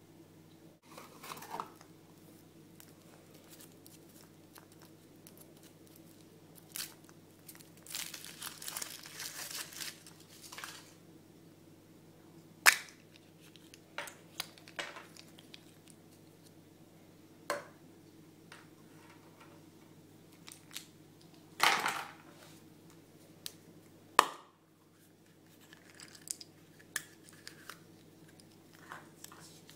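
Hands unwrapping a chocolate surprise egg and its toy: plastic and foil wrappers crinkle and tear, with scattered sharp clicks and snaps of small plastic parts, over a faint low steady hum.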